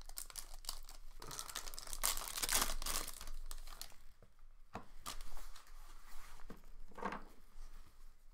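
A trading-card pack wrapper is torn open and crinkled, loudest in the first few seconds. After that come quieter rustles and ticks as the cards are handled.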